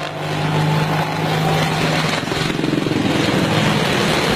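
Helicopter rotor and engine noise, loud and steady, with a steady low hum through the first half.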